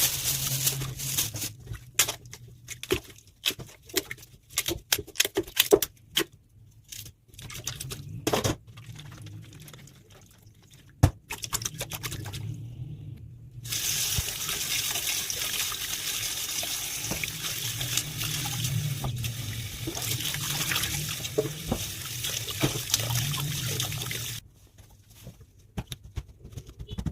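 A knife chopping celery on a cutting board, with crisp strokes in uneven runs. About halfway through, tap water runs steadily for about ten seconds, then the chopping strokes return.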